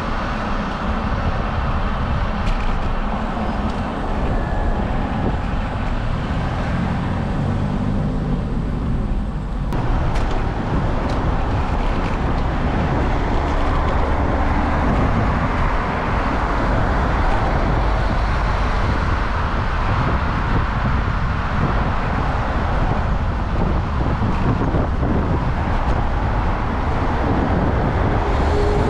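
Road traffic, cars and vans, passing in the next lane, heard from a moving bicycle over a steady low rumble. One vehicle's engine comes through most clearly a few seconds in.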